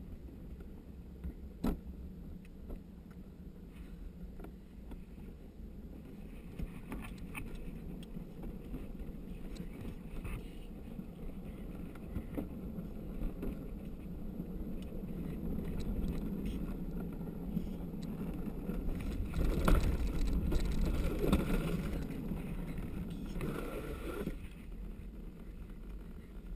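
Gravity luge cart rolling down a paved track: a steady rumble of its wheels on the surface, louder for several seconds in the middle, with a few sharp knocks.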